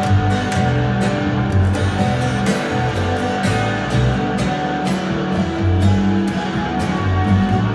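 Live instrumental music from a double bass and an acoustic guitar. The bass holds low notes that change every second or so, under quick plucked guitar notes.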